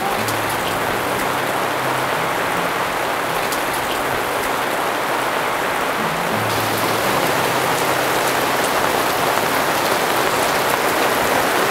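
Heavy rain pouring down, a dense steady hiss of drops hitting surfaces that grows slightly louder toward the end.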